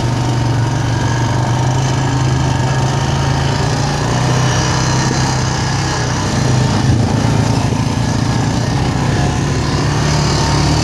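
Four-wheeler (ATV) engine running steadily while riding along a trail, a low even drone.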